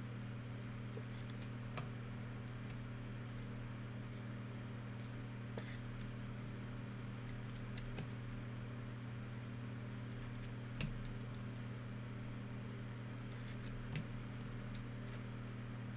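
Scattered light ticks and clicks of trading cards and pack wrappers being handled, with a few sharper clicks, over a steady low hum.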